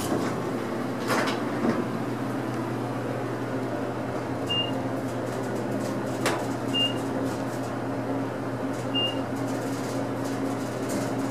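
U.S. Elevator traction elevator running inside the cab: a steady low machine hum, with a click about a second in and another about six seconds in, after which a second low steady tone joins. A short high beep sounds three times, about two seconds apart.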